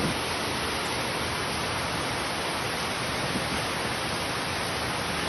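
Heavy rain falling as a steady, even hiss.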